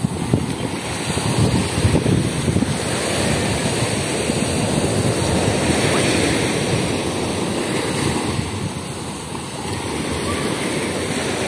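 Sea surf washing onto a beach, swelling to a peak about halfway through, with wind buffeting the microphone.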